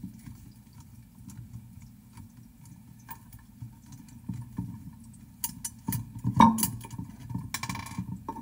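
Screwdriver clicking and scraping against the metal drive hub of a Belimo LF24-SR HVAC damper actuator. The small metal clicks grow into a cluster of louder clicks and knocks after about five and a half seconds, and a short scraping rasp follows near the end.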